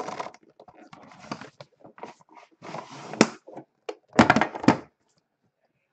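Aluminum briefcase-style trading card case being handled and turned over on a wooden table: scraping, rustling and knocks, a sharp click about three seconds in, and the loudest clatter of knocks at about four seconds as the case is moved.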